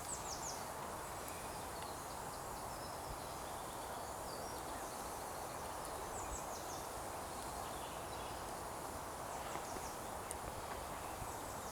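Woodland ambience: a songbird repeats a short, high, falling run of notes every few seconds over a steady rushing background.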